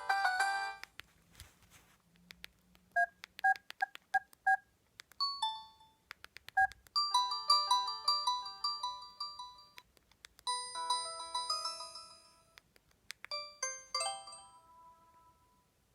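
Preloaded tones of an LG GM205 mobile phone playing one after another: a run of five short two-note beeps, a couple of brief chirps, then three short melodic chime phrases, each with short gaps between.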